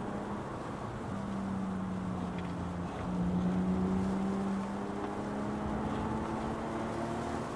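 A car engine running under steady light load while driving, with road and tyre noise. Its note dips briefly a couple of times, then climbs slowly over the last few seconds.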